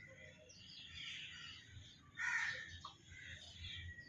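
Birds chirping in the background, with one louder, harsh call about two seconds in.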